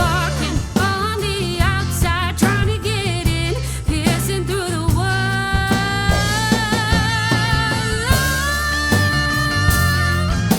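Live rock band music: drums and bass under singing and a lead line of long, wavering held notes.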